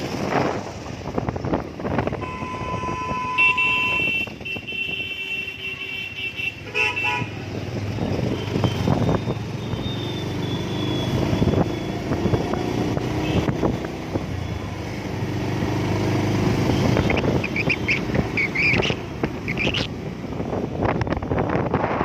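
Town road traffic heard from a moving vehicle: engine and road noise throughout, with vehicle horns sounding. A horn is held for about two seconds a couple of seconds in, short beeps come around seven seconds in, and more higher beeps near the end.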